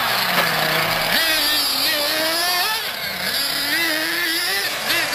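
Small two-stroke nitro glow engines of radio-controlled off-road cars running, revving up and easing off as the throttle is worked, the pitch rising and falling.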